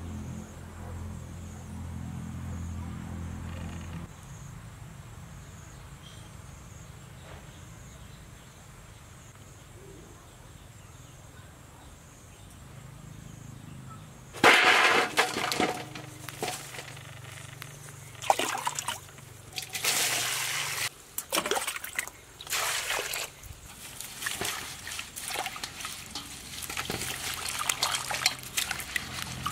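Water sloshing and splashing in a stainless-steel bowl as hands wash lemongrass, chilies and herbs, in loud irregular bursts starting about halfway in. Before that it is fairly quiet, with a low steady hum in the first few seconds.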